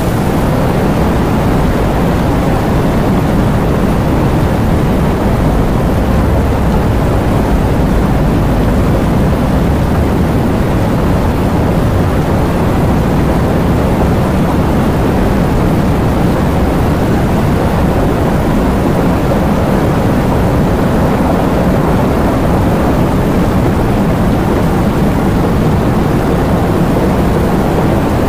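Heavy rain falling: a steady, dense rush with a deep low rumble underneath and no separate claps or drops standing out.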